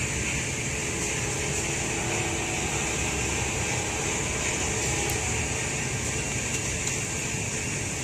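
Steady outdoor background noise: a low rumble under an even high hiss, with no single event standing out.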